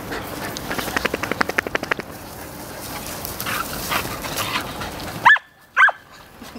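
A dog gives two short, high barks about half a second apart near the end. A rapid patter of ticks comes a second or so in.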